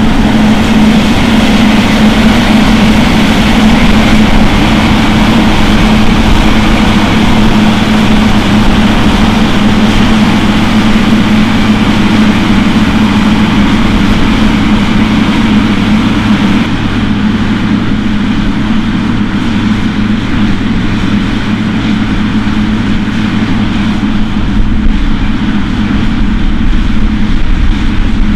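Heavy farm machinery running steadily at work in a maize harvest: a loud, even engine drone with machinery hiss over it. About two thirds of the way through, the higher hiss fades while the drone carries on.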